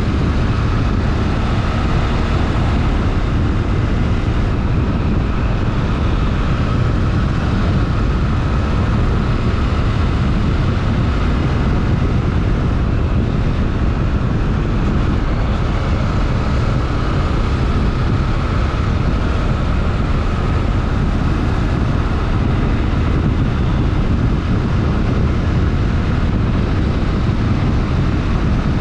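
Honda XRE 300 Rally motorcycle's single-cylinder engine running steadily, with no change in revs.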